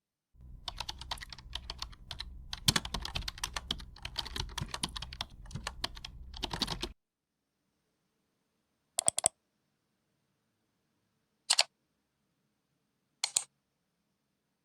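Computer keyboard typing: a fast, irregular run of key clicks over a low hum for about six and a half seconds, cutting off abruptly. Then three single short clicks a couple of seconds apart.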